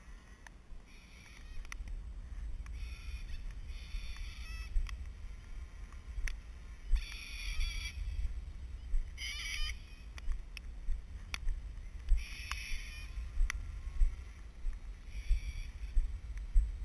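Wind buffeting the microphone as a steady low rumble, with short wavering high-pitched sounds every second or two and scattered sharp taps.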